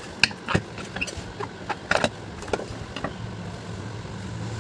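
Scattered metallic clicks and knocks of a ceiling fan's body being handled and opened by hand, over a steady low hum.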